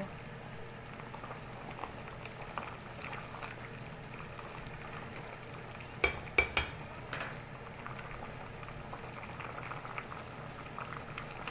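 Pork sinigang broth boiling steadily in a stainless-steel pot, bubbling under a low steady hum. About six seconds in come three sharp clicks of a plastic ladle knocking against the pot.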